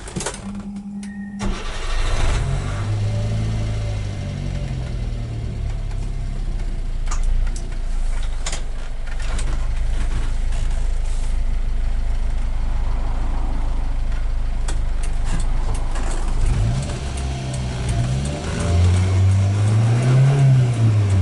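A 1999 Subaru Sambar kei van's small four-cylinder engine pulling the van along in 4WD. It rises in pitch under acceleration and drops back at gear changes through the five-speed manual, with a stronger climb and fall near the end.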